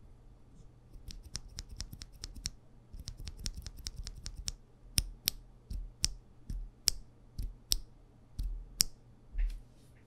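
A bare Akko CS Snow Blue Gray mechanical keyboard switch pressed and released by hand, giving sharp plastic clacks. First comes a run of rapid clacking, then slower, louder presses about once a second, each a pair of clacks as the stem bottoms out and springs back.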